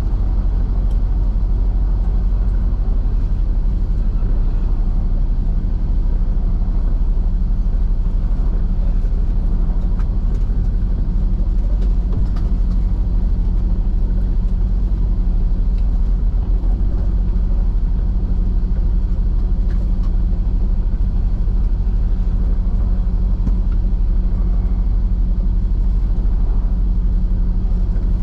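Semi truck's diesel engine running with a steady low hum.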